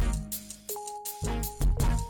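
Background music with a steady beat and bass; the beat drops out for about half a second in the middle, leaving a held note, then comes back.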